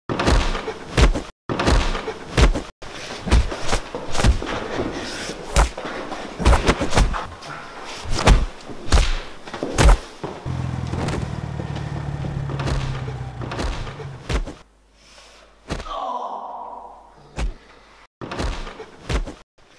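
A long series of heavy thumps and slams, hard hits coming every second or so. A steady low hum runs for a few seconds in the middle.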